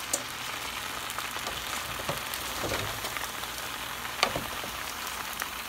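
Butter and olive oil sizzling in a skillet on medium heat under a heaped panful of raw baby spinach, a steady frying hiss. A few light clicks as the leaves are pressed down, the sharpest about four seconds in.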